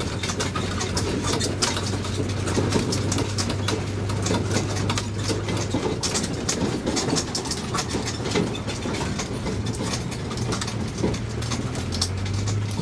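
Tourist road train rolling along a street: a steady low engine hum with the carriage rattling and clicking throughout. The hum eases about halfway and strengthens again near the end.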